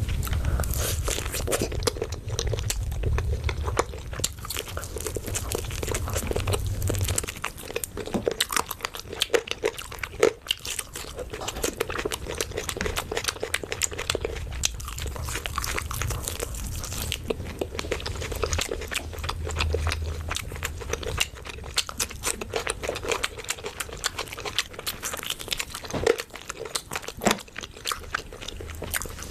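Close-up eating sounds: a person biting and chewing food, with many sharp crunches and wet mouth clicks throughout.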